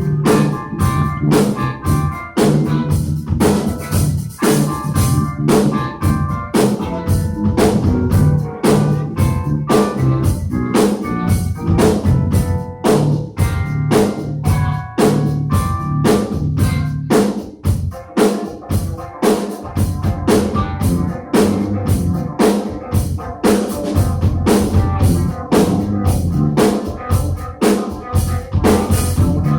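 Drum kit playing a steady beat with rimshots and bass drum, over sustained low bass notes and higher pitched instrument parts; the low notes drop out briefly about two-thirds of the way through.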